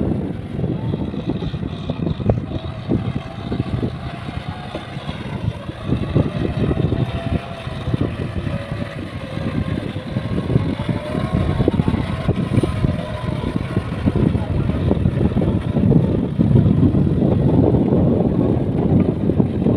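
Kubota tractor's engine running steadily under load as it pulls a rotary tiller through flooded paddy mud, louder over the last few seconds as it passes close.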